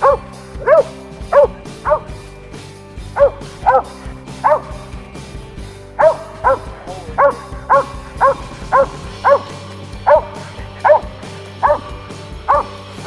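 Squirrel-hunting dog barking steadily at a tree, a string of sharp, high barks about one or two a second: tree barking, the dog marking a treed squirrel.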